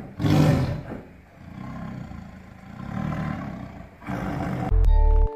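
A recorded tiger roaring: one loud roar at the start, followed by lower, rougher roars and growls. Music with a heavy beat comes in near the end.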